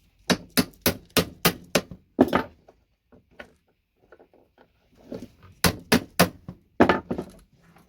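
Plastic housing of a VGA connector cracking and snapping as a tool is worked into the gap at its back to break it open: a quick run of sharp cracks and clicks, then a second cluster a few seconds later.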